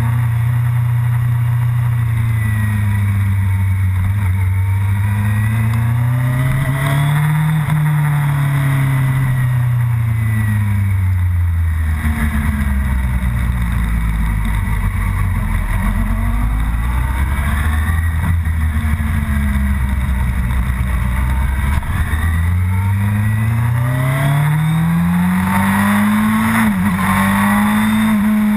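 Motorcycle engine under hard track riding, its pitch rising and falling with throttle and braking through the corners, then climbing steadily late on with a brief dip at a gear change, over wind noise.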